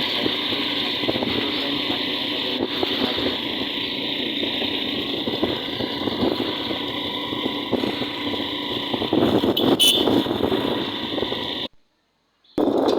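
Steady road-vehicle noise, a continuous running rumble and hiss. It cuts out to silence for under a second near the end.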